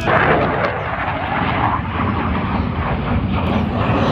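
Airplane flying over, a loud steady engine noise.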